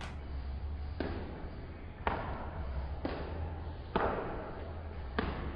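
Running shoes striking a hard floor during B-skip drills: sharp thuds about once a second, each trailing off, over a steady low hum.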